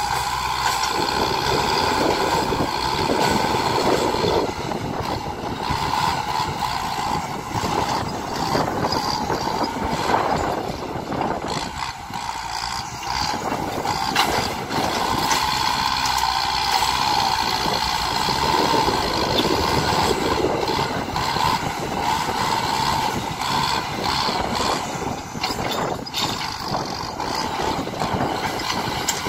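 Kubota M-series tractor's diesel engine running under load as its front blade pushes soil, a steady drone whose loudness dips and swells a few times.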